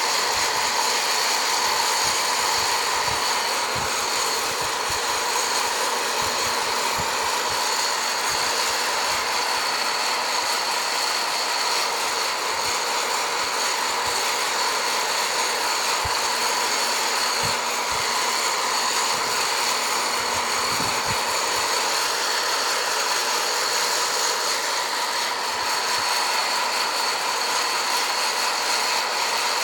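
Hot-air home coffee roaster running with a steady fan whine while the beans roast toward second crack.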